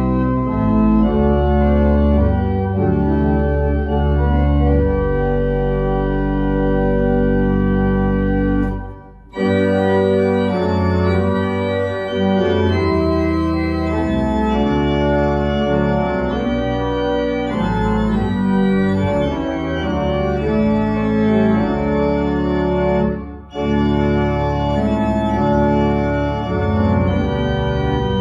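Church pipe organ playing in full, sustained chords over deep bass notes. The music breaks off briefly between phrases twice, about nine seconds in and again about twenty-three seconds in.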